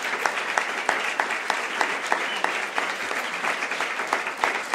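Audience applauding, with one person's hand claps close to the microphone standing out at about three a second.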